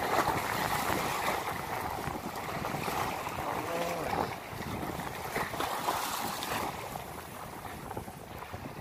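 Small sea waves washing and splashing against the shore rocks, with wind buffeting the microphone.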